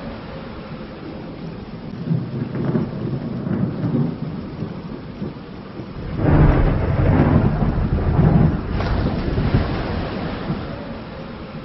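Rolling thunder over steady rain; a louder, deep peal of thunder comes about halfway through and rumbles for a few seconds before easing back to the rain.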